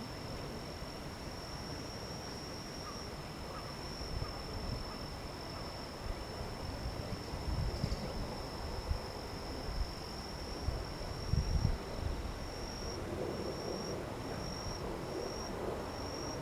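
An insect singing a steady, high-pitched trill that breaks into short separate pulses near the end, over low rumbles that come and go.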